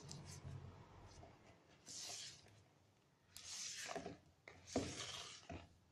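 Spatula scraping and folding thick cake batter around a bowl: three soft scrapes about a second and a half apart, with fainter rubbing before them.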